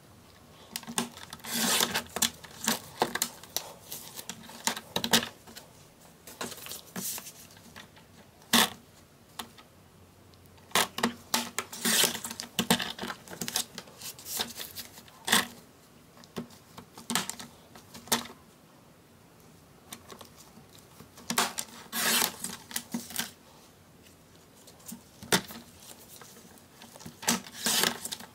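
A plastic paper trimmer cutting sticker sheets: the clear guard arm clacking down and lifting, the sliding cutter run along its rail, and paper shifted on the base. Irregular clicks and short scrapes with pauses between them.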